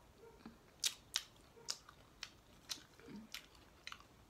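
Quiet close-up chewing with wet mouth clicks and lip smacks: about eight short, sharp clicks spread through the few seconds.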